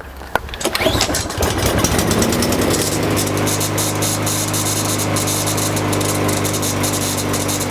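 Lawnmower's small single-cylinder engine pull-started on starting fluid sprayed into the carburetor: it catches about a second in, revs up over the next two seconds and then runs steadily. It runs only on the starting fluid, a sign of a fuel-delivery fault that the mechanic puts down to the carburetor.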